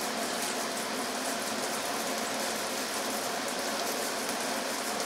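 Steady rushing background noise, even in level, with no knocks or clicks.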